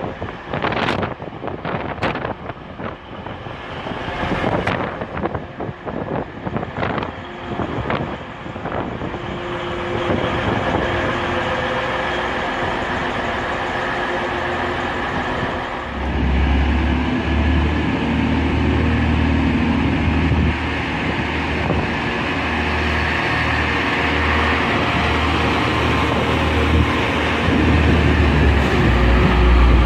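TransPennine Express Class 185 diesel multiple units: wind buffets the microphone in the first several seconds as the train draws in, its noise building. From about halfway, the units' underfloor Cummins diesel engines run steadily with a deep low hum while the train stands at the platform.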